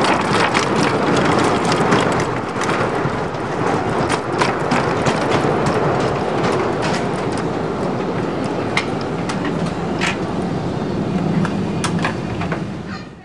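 Wooden roller coaster train running along its track, a dense rumble with many sharp clicks and clacks from the wheels on the rails; the sound cuts off suddenly near the end.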